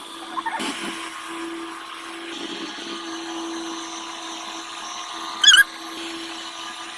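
Steady mechanical whine of a small motor running, with one short, loud, high squeak about five and a half seconds in.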